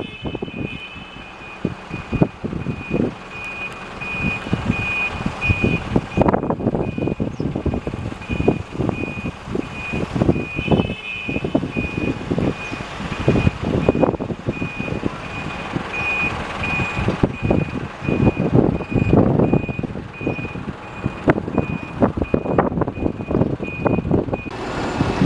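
A vehicle's reversing alarm beeping over and over at one high pitch, stopping shortly before the end, with rumbling engine and wind noise beneath it.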